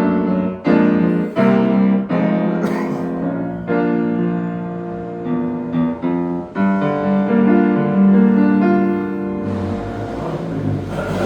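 Piano played: a series of chords struck one after another, ringing on between strikes, the later ones held longer. Near the end a broad rushing noise rises underneath.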